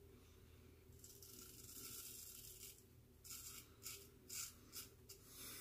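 Faint razor strokes scraping through stubble: one longer stroke, then about six short strokes in quick succession.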